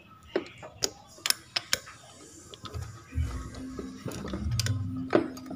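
Sharp clicks and light clatter of hands handling plastic wiring connectors and small parts inside a scooter's frame. About halfway through, a low steady hum comes in underneath.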